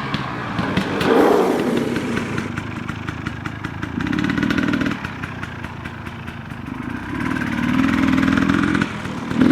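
2018 KTM 300 Six Days two-stroke dirt bike engine running, the throttle opened and eased off a few times.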